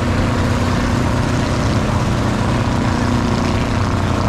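A motor engine running steadily, a loud, even drone with a low hum.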